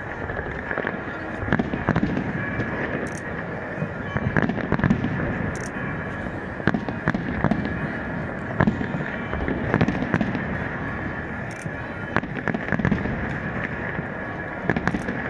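Aerial fireworks shells bursting in quick succession: repeated sharp bangs and crackle over a continuous rumbling din.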